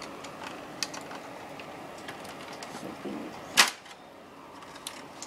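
Small clicks and scrapes of a hand tool working on plastic and metal parts inside a dot-matrix printer chassis, with one loud sharp snap about three and a half seconds in.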